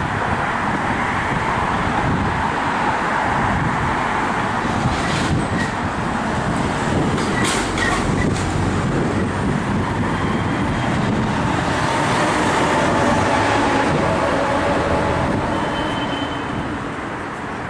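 Steady road traffic noise, swelling as a vehicle passes about twelve seconds in, then easing off near the end.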